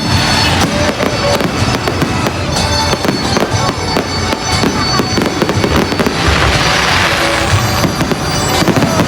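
Aerial fireworks going off in a rapid, continuous run of bangs and crackles, with a denser crackling hiss about six seconds in.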